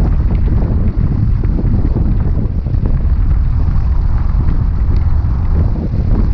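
Strong wind buffeting the microphone: a loud, low rumble that rises and falls with the gusts.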